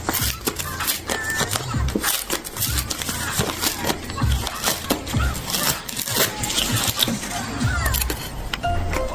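Background music, with frequent crinkling and clicking as packaging is handled and opened.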